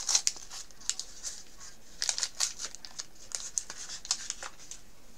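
Small plastic packaging crinkling and rustling in hands, in irregular bursts of sharp crackles, as the bagged pieces of a Mini Brands capsule toy are handled and opened.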